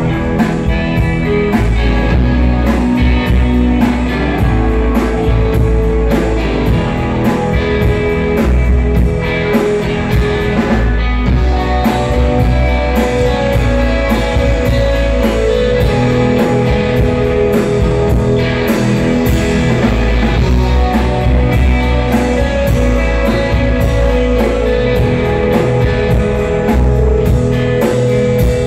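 Live rock band playing loud: electric guitar over a drum kit keeping a steady beat.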